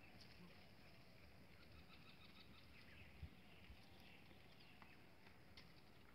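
Near silence: faint open-air ambience with scattered faint bird chirps and soft patter from a walking herd of cattle.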